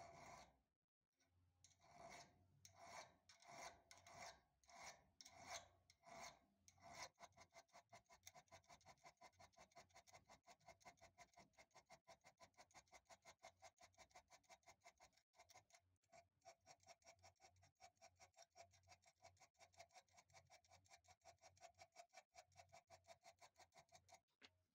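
Flat hand file rasping across a small steel part of a vintage hand drill: slow, even strokes about one every two-thirds of a second for the first several seconds, then short quick strokes, about five a second, for the rest.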